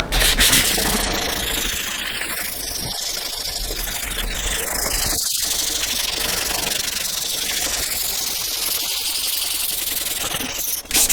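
320-grit sandpaper scouring surface rust off the metal table of a scroll saw, a steady abrasive hiss.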